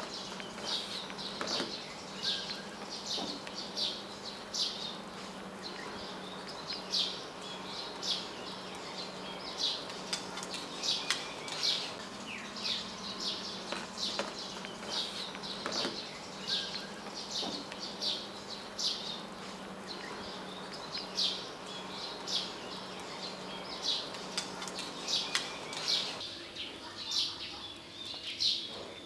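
Small birds chirping: short, high chirps repeating about once or twice a second, over a faint steady low hum.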